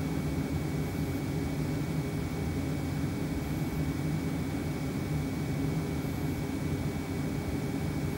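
Steady rush of a VW Sharan's cabin heater blower, heard from inside the car, with a low hum underneath and a faint high steady whine. It is blowing warm air from the D3WZ auxiliary heater onto a frosted windscreen to clear it.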